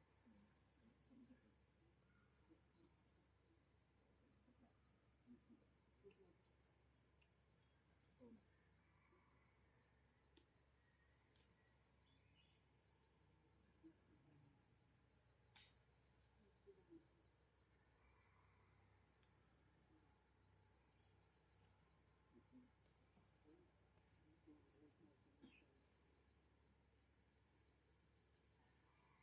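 Faint insects chirping in a fast, even pulse, about four chirps a second, with a thin steady high whine above it.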